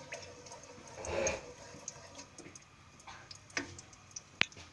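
Green cardamom pods crackling in hot ghee: scattered ticks and small pops, with a wooden spatula stirring and scraping in a metal pot. There is a brief swell of noise about a second in and a sharper click near the end.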